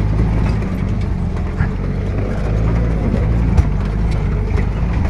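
UAZ off-roader's engine pulling steadily up a rough, stony dirt track, heard from inside its open-sided canvas cab, with road noise and a few sharp knocks from the jolting vehicle.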